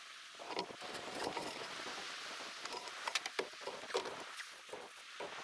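Light rain pattering steadily, with scattered knocks and clinks of steel rebar being picked up and handled on a wooden plank; the angle grinder is not running.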